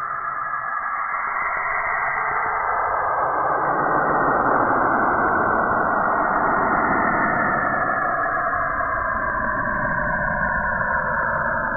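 Cassini's recording of Saturn's auroral radio emissions, turned into sound: a dense, eerie hiss whose bands slowly drift up and down in pitch, swelling louder about two seconds in.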